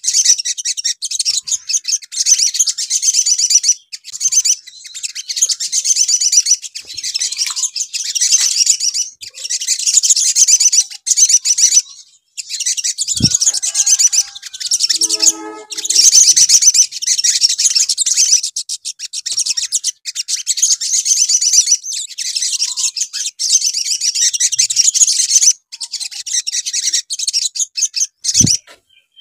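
Olive-backed sunbirds singing: a fast, high-pitched, nearly continuous twittering chatter of rapid trills, breaking off briefly every few seconds. Two short low knocks sound, about halfway and near the end.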